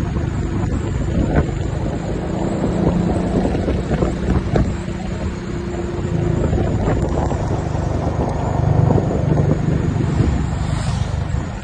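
Piaggio MP3 three-wheeled scooter running on a downhill ride, a steady low engine hum mixed with wind rushing over the microphone. Oncoming motorcycles pass near the end.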